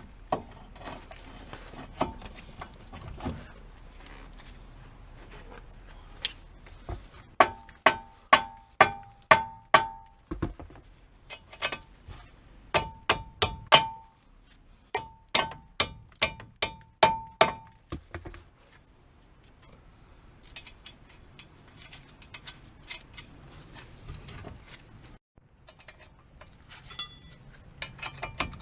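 Repeated metallic knocks, each ringing briefly, in several runs of about two or three strikes a second through the middle of the stretch, with scattered lighter clicks of tools and parts before and after.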